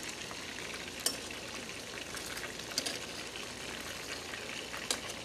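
Breaded chicken lollipops deep-frying in a pot of hot oil, nearly cooked: a steady sizzling hiss, with three sharp clicks or pops standing out.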